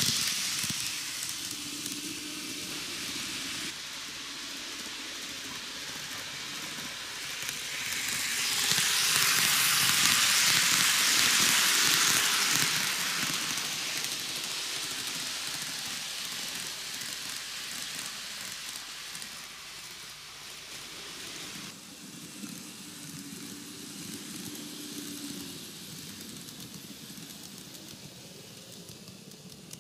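TOMIX N-gauge 733 series model electric train running on plastic superelevated track: an even rushing of wheels and motor that swells as the train passes close, about eight to thirteen seconds in, then fades as it moves away.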